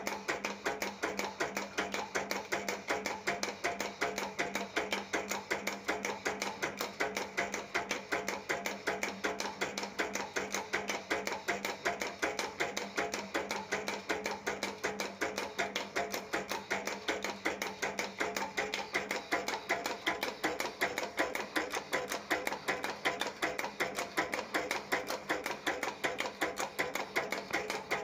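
Winding-paper cutting and folding machine running, its cutter chopping an insulation-paper strip into small pieces with rapid, even clicking, several strokes a second, over the steady hum of its belt-driven electric motor.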